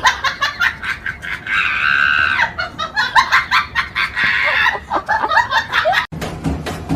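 Bird-like clucking and squawking calls mixed with sharp clicks, with one longer drawn-out call about two seconds in. The calls cut off suddenly near the end.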